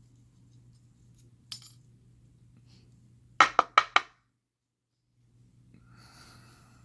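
Small metal parts of a gutted pin-tumbler lock clinking on a hard surface: a faint tick, then about halfway through four quick, sharp clinks in a row.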